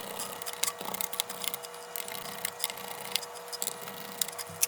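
Screwdriver backing small screws out of a laptop motherboard: a run of light, irregular clicks and ticks over a faint steady hum.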